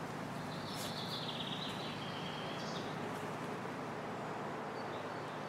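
Steady outdoor background noise, with a bird trilling faintly for a couple of seconds shortly after the start.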